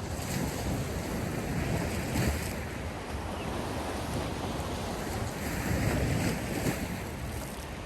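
Sea surf washing in, swelling in two surges, the first in the opening seconds and the second near the end, with wind rumbling on the microphone.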